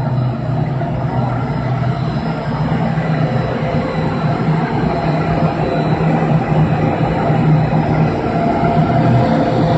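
ABA double-screw HDPE film blowing machine running: a steady machinery hum and rush of motors and blowers, with a thin high whine over it.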